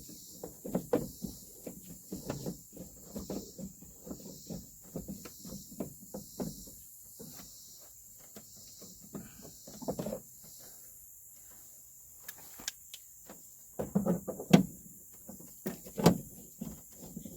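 Irregular clicks, taps and light knocks of parts being handled on a truck door during repair work, with a few louder knocks about fourteen to sixteen seconds in.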